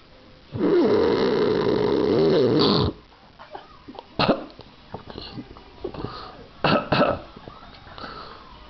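A man snoring: one long, loud snore beginning about half a second in and lasting a little over two seconds, then a few short, sharp breath sounds.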